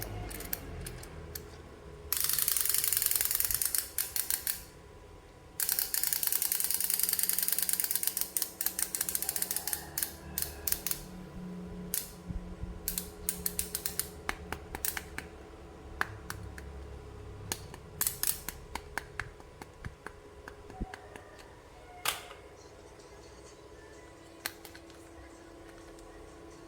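Toy packaging being handled in an unboxing: two long stretches of loud crinkling and crackling plastic packaging, followed by scattered sharp clicks and taps of small plastic toy parts.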